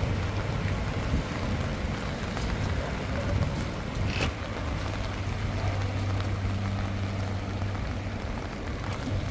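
Heavy rain pouring steadily, with the low steady hum of a vehicle engine underneath and a single sharp click about four seconds in.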